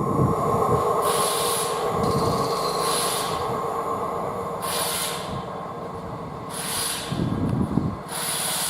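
Loaded stone wagons of a Class 66-hauled freight train rolling past at speed, with a steady squeal from the wheels and a rush of noise that swells as each wagon goes by, about every two seconds.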